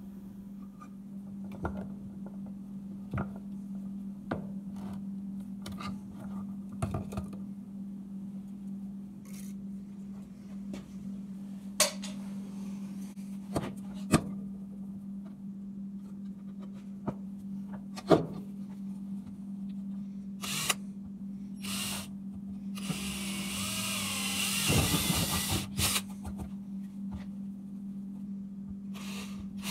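Cordless drill boring into PVC pipe clamped in a vise: a couple of short bursts, then it runs for about three seconds with its pitch wavering, and starts again at the very end. Before that, scattered clicks and knocks of handling tools and pipe, over a steady low hum.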